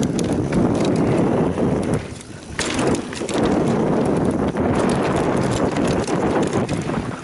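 Mountain bike riding fast over a rough, rocky trail: tyres rumbling over rocks, with a rapid, irregular clatter of knocks and rattles, easing briefly about two seconds in.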